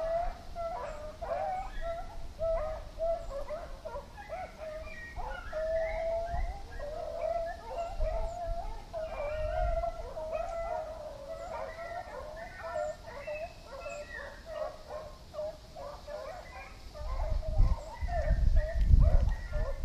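A pack of beagles baying and howling without pause, several voices overlapping, in full cry on a rabbit's trail. A low rumble rises near the end.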